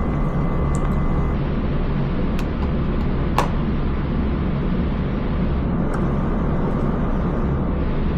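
Steady low rumble of a house furnace running, with a few faint clicks from handling the soldering iron and wires.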